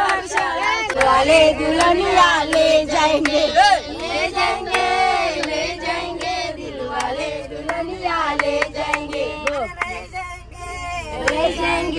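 A group of people singing a song together, with hands clapping along to the beat.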